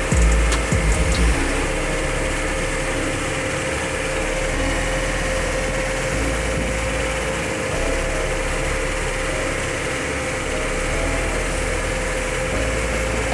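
Engine of an Ajax Fiori Argo 4000 self-loading concrete mixer running steadily as the machine drives along the road, heard from inside the cab, with a steady whine over a low rumble. A few knocks sound in the first second or so.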